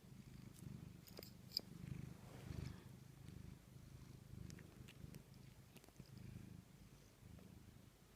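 A pet's faint low, steady rumble that swells and eases, with a few light clicks about a second and a half in.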